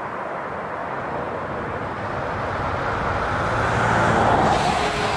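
Distant twin-engine jet airliner rolling out just after touchdown, its engine noise a steady rush that swells to its loudest about four seconds in.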